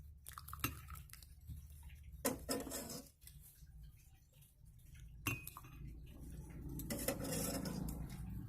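Metal spoon clinking against a pot and glass while spooning hot betel-leaf water, in a few separate clinks and scrapes. A low steady hum runs underneath and grows louder near the end.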